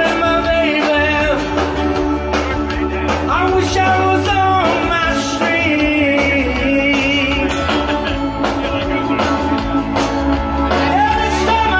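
Live rock band playing through a loud outdoor PA: steady bass and drums under guitars, with a singing voice whose pitch slides and bends over the top.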